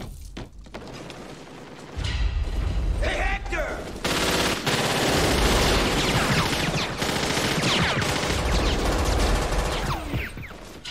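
Automatic gunfire from several guns in a sustained exchange. It starts about two seconds in and becomes a continuous barrage from about four seconds in, easing off near the end.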